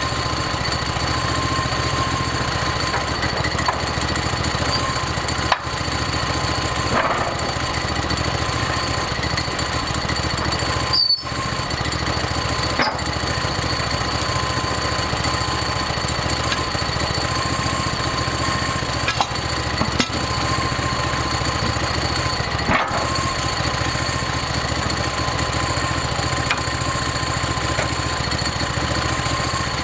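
Portable band sawmill running: the engine drones steadily while the band blade cuts through a log, with a steady high whine over the engine. The sound drops out very briefly three times.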